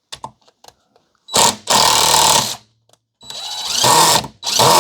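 Cordless impact driver run in four bursts, the third growing louder, driving a DeWalt FlexTorque #2 Phillips bit into a rounded-out screw, after a few light clicks in the first second.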